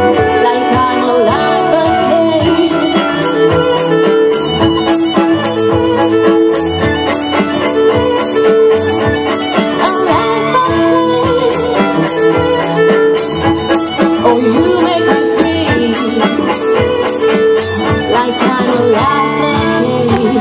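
String ensemble of violins and cellos playing an instrumental passage of a pop song, sustained bowed chords under a moving violin line, over a steady beat.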